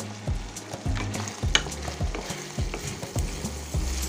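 Chopped chicken gizzards and onions frying in a sauce in a stainless steel pan, with a steady sizzle. A wooden spatula stirs and scrapes through them, making sharp irregular clicks against the pan.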